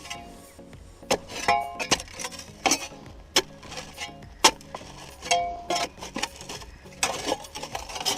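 A hand tool knocking and scraping packed dirt off the steel track undercarriage of a Kobelco SK150 excavator. It makes about a dozen irregular sharp clanks, some with a brief metallic ring.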